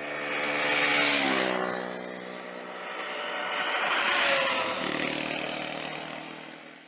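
Motorcycle engines running past, swelling twice about three seconds apart and fading away, the pitch dropping as the first one goes by.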